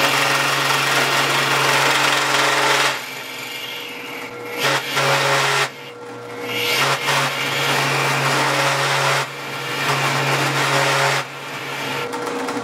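Drill press running while a chisel-ground nail cuts an O-ring groove into a spinning cast fiberglass-resin piston: the tool scrapes and chatters in four loud spells, easing off between them, over the steady hum of the motor. The chatter comes from the slanted nail edge wedging into and binding in the resin.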